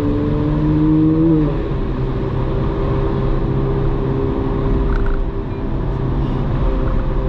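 Ferrari 458 Spider's 4.5-litre V8 pulling in gear, its pitch rising for about a second and a half, then dropping suddenly on an upshift and running steady at lower revs over road noise.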